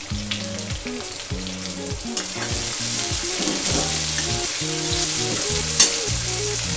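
Sliced onions sizzling in hot oil in a metal kadai, stirred with a metal spatula that scrapes and taps against the pan, with one sharp clack about six seconds in. Background music plays underneath.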